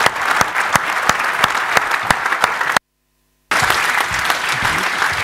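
Audience applauding, with dense steady clapping. A short gap of complete silence, a dropout in the recording, breaks it a little past halfway.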